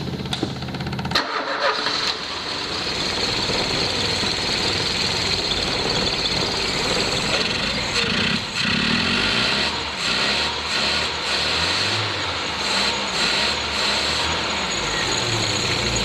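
Ford Scorpio's freshly rebuilt 1.8 OHC carburettor four-cylinder engine running on its first start-up, just after an ignition-timing adjustment. Its sound changes about a second in, from a steady even tone to a fuller, rougher running noise.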